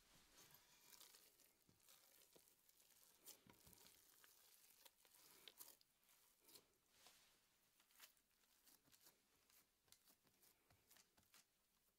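Faint, irregular handling sounds of hands kneading soft, sticky gingerbread dough in a steel bowl: soft tearing and squishing as the dough is pulled and pressed. Near the end, the dough is patted into a round on parchment paper.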